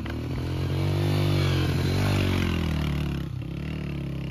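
Motorcycle engine running, its pitch rising and falling a little as the throttle changes, loudest midway.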